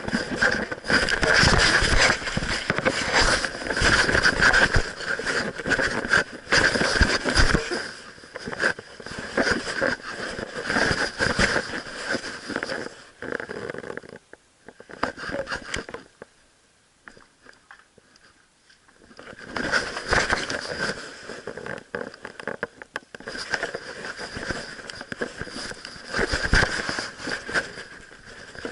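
Rubbing, scraping and knocking of an action camera strapped to a moving dog, jostled with each step. It goes much quieter for a few seconds midway while the dog stands still, then picks up again.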